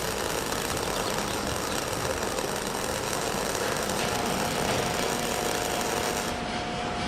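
A train running with a steady knocking rattle. A steady whine joins about four seconds in.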